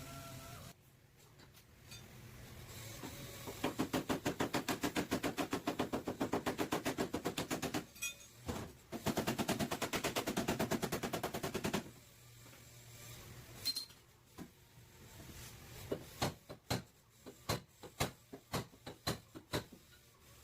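Sheet-metal bodywork on a car's damaged back panel: a hammer tapping fast and evenly on the metal in two runs of a few seconds each, then slower single blows near the end.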